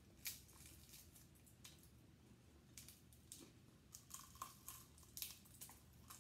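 Faint close-up eating sounds of a chicken wing: crackly clicks and soft tearing as the wing is pulled apart with the fingers, bitten and chewed, the clicks coming thicker in the second half.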